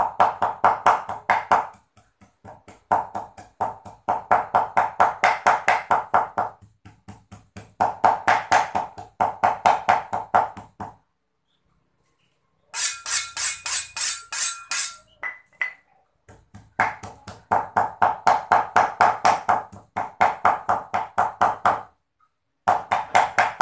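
Meat cleaver mincing raw pork on a round wooden chopping block: fast, steady chopping at about five strokes a second, in runs of a few seconds with short pauses between. About halfway through, one two-second run of strokes sounds sharper and rings metallically.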